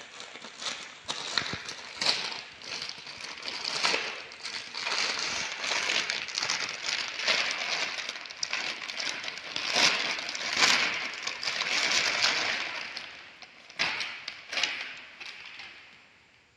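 Plastic courier mailer and clear polybag crinkling and rustling as they are pulled open and handled, dying away near the end.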